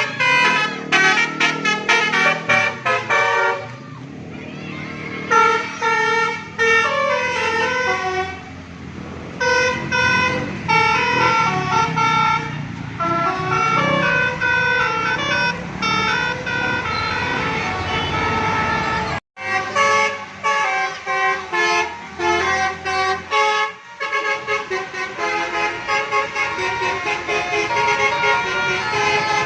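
A bus's telolet musical air horn playing quick stepped-note tunes over and over, with the bus's engine running underneath. The sound drops out for a moment about two-thirds of the way through.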